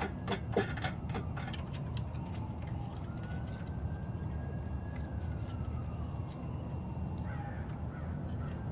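A faint distant siren wailing, slowly rising and then falling in pitch, over a steady low rumble. A few sharp clicks near the start.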